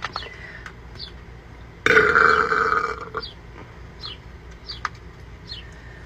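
A woman's long burp, starting suddenly about two seconds in and lasting over a second.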